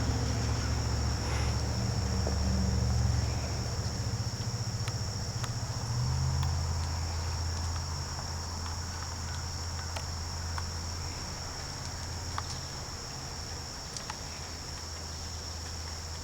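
Steady high trilling of insects, with a louder low hum underneath that shifts pitch about six seconds in and slowly fades, and a few faint ticks.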